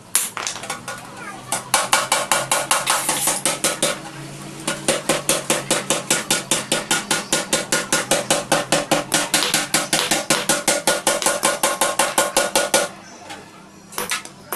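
Small hammer tapping rapidly on a metal part laid on a sledgehammer head as an anvil: ringing metal-on-metal strikes at about five a second, pausing briefly twice and stopping near the end.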